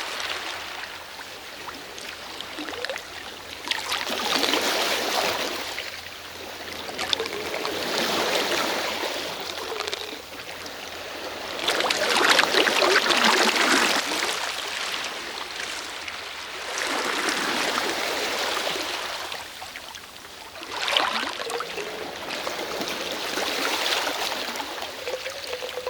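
Sea waves washing onto a shore, each one swelling up and ebbing away in turn, about every four to five seconds.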